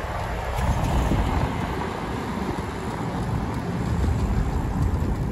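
Wind buffeting the microphone of a camera carried on a moving bicycle, a steady fluttering rumble, with street traffic noise underneath.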